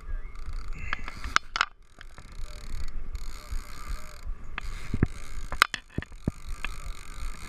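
Conventional fishing reel being cranked hard against a hooked fish, with irregular clicks and knocks from the reel and rod handling over a steady low rumble.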